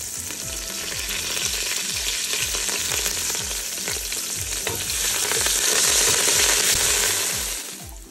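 Whole spices, bay leaves and curry leaves frying in hot oil in a stainless steel pot: a tadka tempering, giving a steady loud sizzle. The sizzle grows louder late on, then stops abruptly just before the end.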